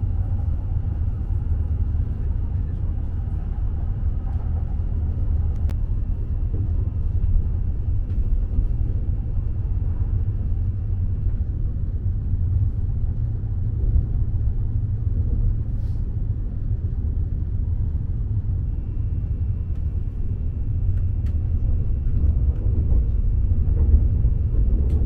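Steady low rumble of a Tohoku Shinkansen bullet train running, heard from inside the passenger cabin. A faint high whine runs through the first ten seconds or so and comes back near the end.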